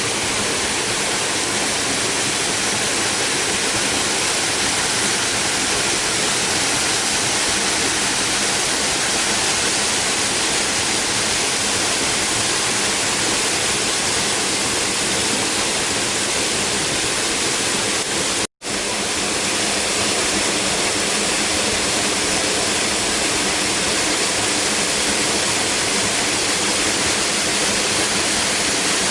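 Waterfall rushing and splashing into its plunge pool: a loud, steady roar of falling water, cut off for an instant about two-thirds of the way through before resuming.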